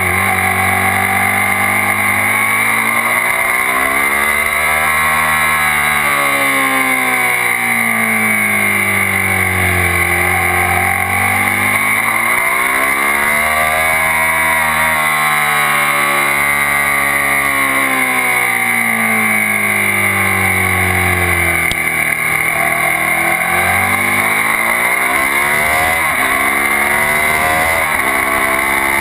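Suzuki SV650's V-twin engine at track pace, its revs climbing and falling several times as the bike accelerates and slows through the lap. Steady wind and road noise runs underneath.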